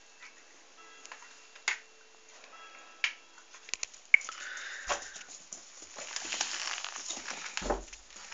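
A bull terrier puppy's claws clicking and scrabbling on a tiled floor as it lunges at its reflection in a mirror: a few sharp clicks, then a busier scuffle from about six seconds in, with two dull thuds, one about five seconds in and one near the end.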